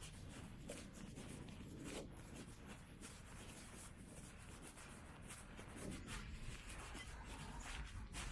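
Faint low background rumble with soft, irregular scuffs and rubbing sounds from a person walking.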